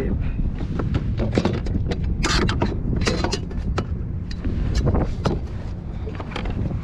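Irregular knocks, taps and rustles of a summer flounder being handled and laid on a measuring board aboard a plastic fishing kayak, over a steady low rumble of wind on the microphone.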